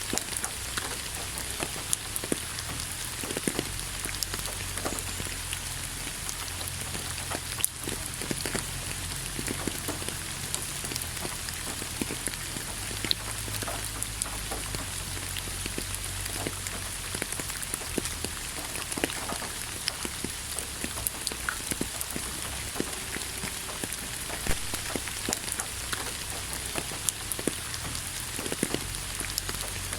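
Steady rain falling on a surface, an even hiss with many close drops ticking and pattering through it.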